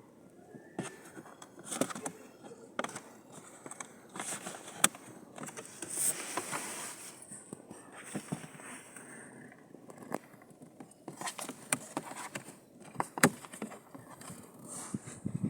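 Scattered clicks, knocks and rustling from handling a car's cabin air filter and its plastic housing, with a longer scraping rustle about six seconds in.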